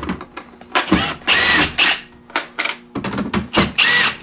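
Makita cordless driver backing out battery terminal screws, whirring in several bursts. The longest runs about a second, and each rises in pitch and then falls away.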